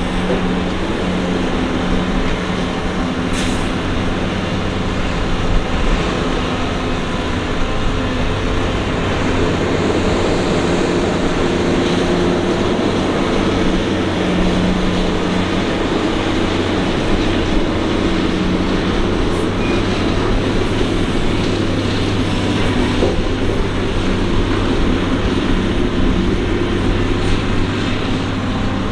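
Diesel engine of a Doosan DX225LC hydraulic excavator running steadily under load while it digs and swings to load a dump truck, a continuous low hum.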